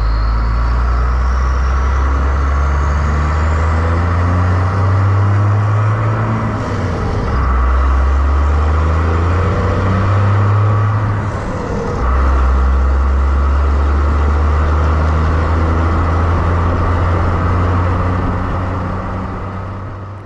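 A vehicle driving, its engine and road noise a steady low drone. The drone dips and changes pitch twice, about seven and twelve seconds in.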